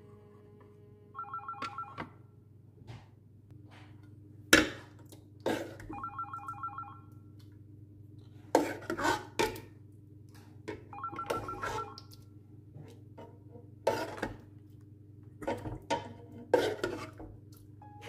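A telephone rings three times, each ring a trilling burst about a second long, roughly five seconds apart. Between the rings a metal serving spoon knocks and scrapes against an aluminium pot and a glass dish as curry is ladled out, and these clanks are the loudest sounds.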